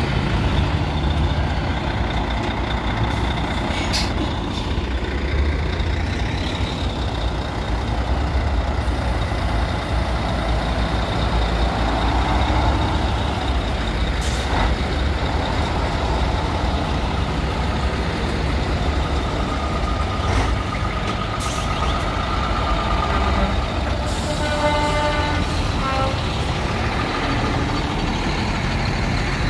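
Classic diesel lorry engines running steadily as trucks pull away, with several short, sharp air-brake hisses. A quick run of short beeps comes near the end.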